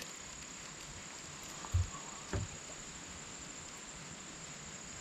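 Handling sounds on a fishing kayak: a sharp click at the start, then two dull thumps about half a second apart a little under two seconds in, over a steady faint high-pitched hum.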